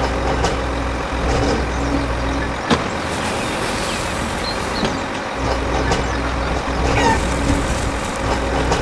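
A motor running steadily with a low hum, and one sharp click about a third of the way in.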